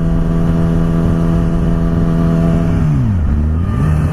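Yamaha R6 sport bike's inline-four engine running at steady revs under way. Near the end the revs fall sharply and then climb back up, as when the throttle is eased off and opened again.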